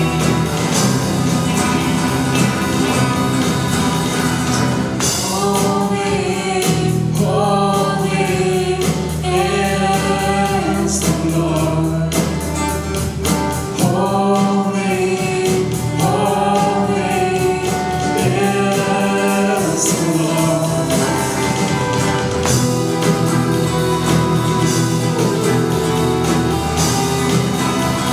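Contemporary worship song performed by a youth praise team: voices sing in a group over a steady band accompaniment. The singing comes in about five seconds in and drops out around twenty seconds in, leaving the accompaniment.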